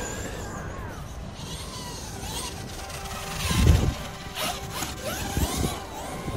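Electric RC monster trucks' brushless motors whining, the pitch rising and falling as the throttle changes, with a short loud burst of low rumbling noise about three and a half seconds in.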